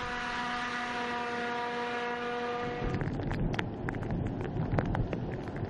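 A steady hum with a whine in it and a wind-like rush for about three seconds. Then a vehicle ploughs through deep floodwater: a low rumble with splashing spray and scattered sharp ticks.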